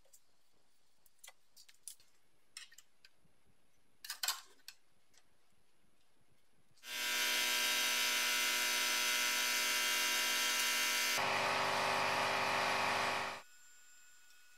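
A few faint taps of sheet metal being handled. About halfway in, a small electric power tool starts and runs steadily for about six seconds, its sound growing fuller partway through, then cuts off abruptly.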